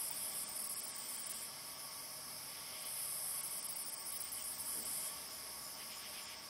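Steady high-pitched chorus of night insects, crickets among them. A faint, brief distant noise comes about four to five seconds in.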